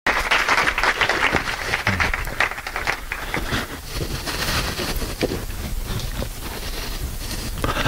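Audience applauding, loudest in the first couple of seconds and then tapering off.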